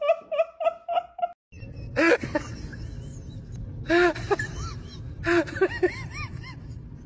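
People laughing off camera: a quick run of short, high-pitched laughs, then, after a cut, a steady low outdoor rumble broken by three bursts of ha-ha laughter.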